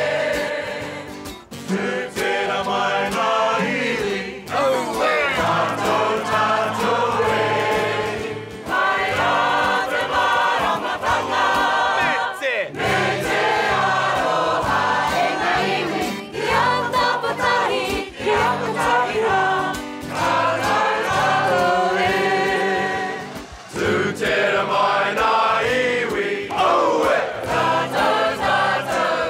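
Music: a song sung by several voices together, choir-style, over instrumental backing.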